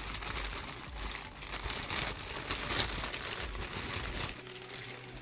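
Plastic packaging and bubble wrap crinkling and rustling as they are handled and pulled off a boxed figure.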